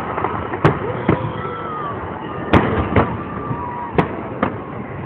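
Aerial fireworks salute exploding overhead: about six sharp bangs spread unevenly over five seconds.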